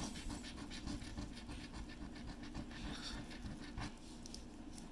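Scratching the coating off a paper scratch-off lottery ticket in quick, repeated rubbing strokes.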